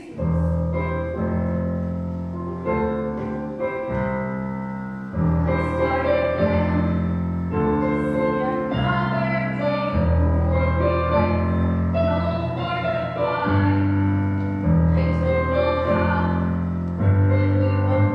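Piano playing slow, sustained chords from a musical theatre finale, the bass note changing about every second.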